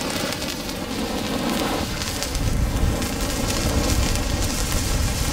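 Handheld pyrotechnic star torch (JGWB Sternfackel Typ A) burning with a steady fizzing hiss and crackle as it throws sparks. A low rumble joins from about two seconds in.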